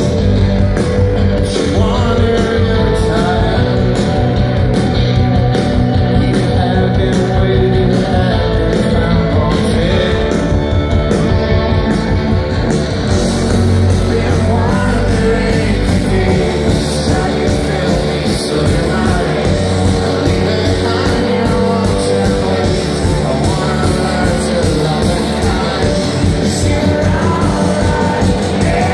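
Live rock band playing loud amplified electric guitars and drums, with a sung lead vocal.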